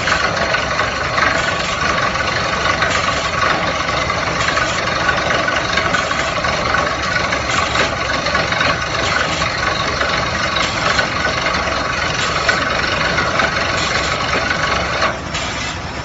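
Tractor-mounted water well drilling rig running steadily: engine and rig machinery making a dense, loud mechanical noise that drops in level shortly before the end.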